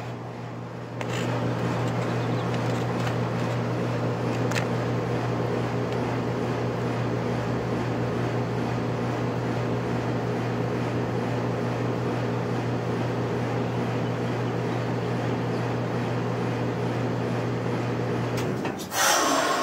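Goodman 5-ton heat pump outdoor unit running in cooling mode: a steady compressor hum with fan noise. Near the end the compressor cuts off abruptly and a loud whoosh follows, typical of the reversing valve shifting and refrigerant pressures equalizing at shutdown.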